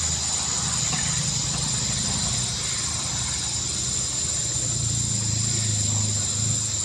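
Insect chorus trilling steadily at a high pitch, with a second, faster pulsing trill just above it.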